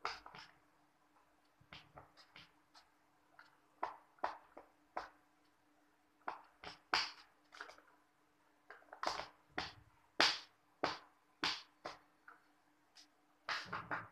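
Screwdriver working the screws on the plastic underside of a computer keyboard: irregular short clicks and scrapes of metal on plastic. A faint steady hum sits underneath.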